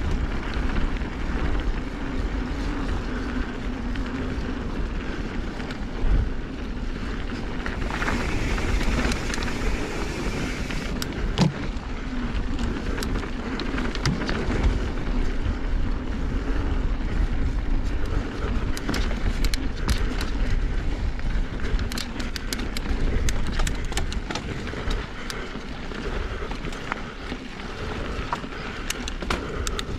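Mountain bike rolling fast along a dirt singletrack: wind buffeting the microphone, tyres on dirt, and frequent sharp clicks and rattles from the bike over the rough ground, thicker in the second half.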